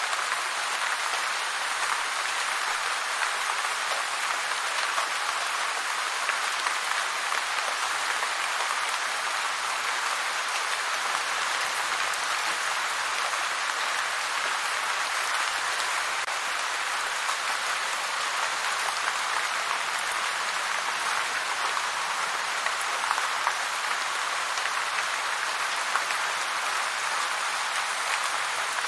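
Steady rain: a dense, even hiss of many drops with fine scattered ticks.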